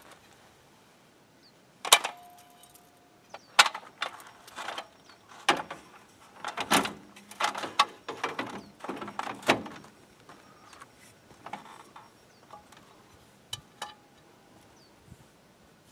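Aluminium multi-position ladder clanking and rattling as it is folded and leaned against a van. A sharp metal clank about two seconds in rings briefly, a run of knocks and rattles follows in the middle, and a few lighter knocks come near the end as it is climbed.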